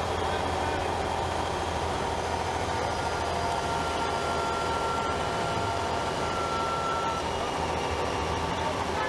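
Steady street traffic: vehicle engines running with a constant rumble, and a thin high whine held for a few seconds in the middle.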